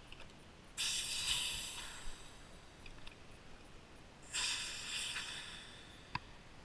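Air hissing out of an inflatable kayak's side-tube valve as it is pressed open, in two bursts of about a second and a half each, each fading as it goes; a sharp click comes near the end.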